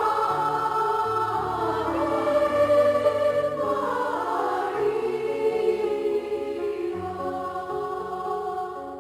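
Choir singing a slow hymn in long held notes over a steady low accompaniment, growing softer toward the end.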